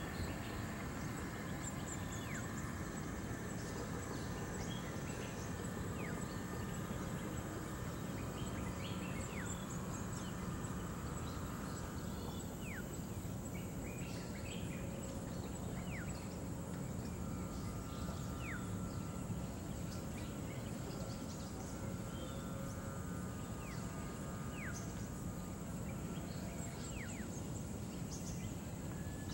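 Forest ambience: a steady low rumble under a constant high insect drone, with short, faint falling bird whistles every few seconds.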